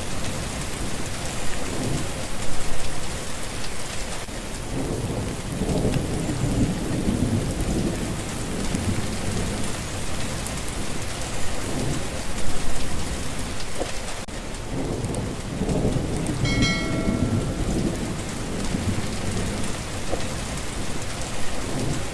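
Steady rain falling in a thunderstorm, with low thunder rumbling and rolling several times as it swells and fades.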